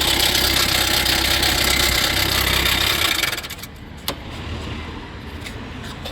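Fiat 500L diesel engine idling with a rattle that the mechanic puts down to a stretched, worn timing chain. It is switched off a little over three seconds in, and the running noise stops. A single click follows about a second later.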